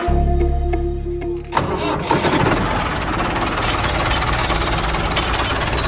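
Background music, then about a second and a half in a small engine starts abruptly and keeps running with a rough, rattling chatter.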